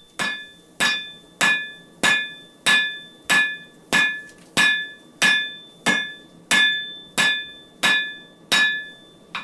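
Hand hammer striking a forge-welding-hot wire rope billet on the anvil in steady, even blows, about one and a half a second, each blow followed by a short metallic ring. These are the first hits setting the initial forge welds in the twisted cable.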